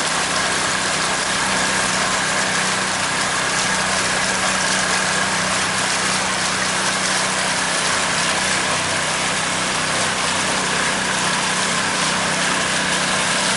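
Pontoon boat's outboard motor running steadily under way: a constant hum under an even hiss that does not change.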